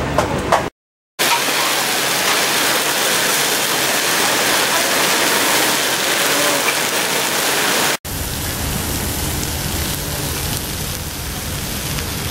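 Food sizzling hard on high heat: a loud, dense, even hiss. It drops out briefly about a second in and changes near the end, turning a little lower and quieter.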